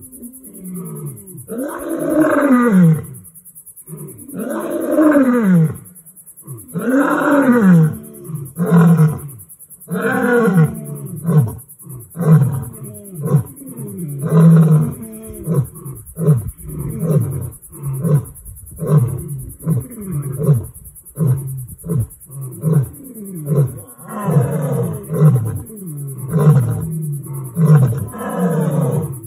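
Lions roaring in a full roaring bout. There are three long moaning roars that rise and then fall in pitch, followed by a long series of shorter grunting roars at about one a second.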